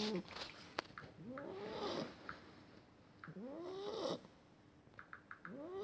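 Beagle puppy snoring in its sleep: a pitched snore that rises and falls in pitch with each breath, about every two seconds.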